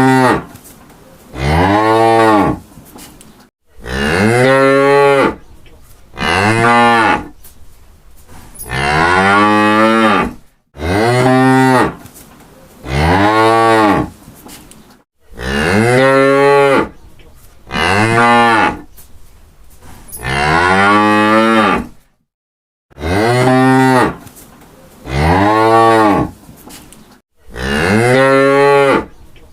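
Cows mooing: about a dozen separate moos, one after another, each lasting a second or so and rising then falling in pitch.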